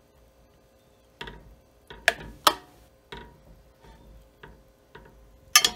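Metal spoon clinking and scraping against a stainless steel saucepan while stirring melting butter and chocolate: irregular light taps starting about a second in, a few a second, the loudest near the end.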